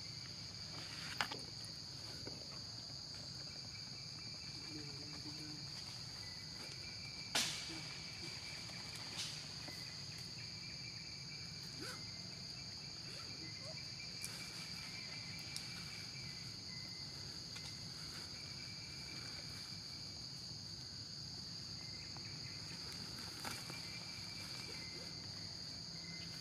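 Forest insects calling in a steady, high, even drone, with a fainter trilling that comes and goes. A few sharp clicks stand out, the loudest about seven seconds in.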